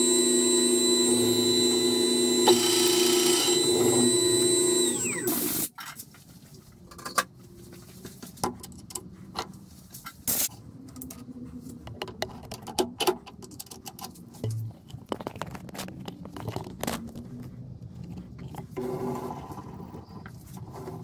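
Myford Super 7 metal lathe running with a steady whine, then winding down to a stop about five seconds in. After that, scattered light metallic clicks and knocks as the drill chuck and tooling are handled.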